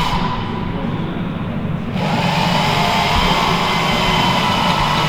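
Steady whirring and humming of a motor-driven machine, growing brighter and a little louder about two seconds in.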